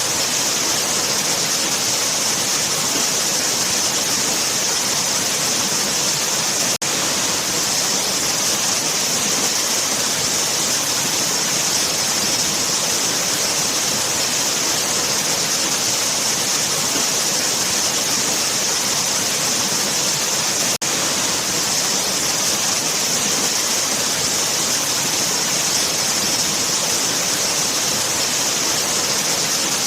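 Waterfall: water falling and rushing steadily, a dense hissy roar with no change, dropping out for an instant twice.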